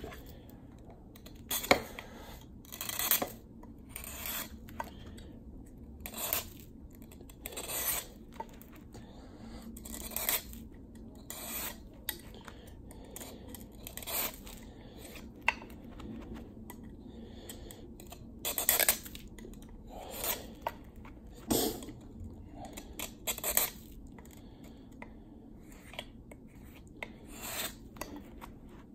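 Knife blade shaving facets into a block of clear ice by hand, each stroke a short rasping scrape, repeated at irregular intervals of a second or two.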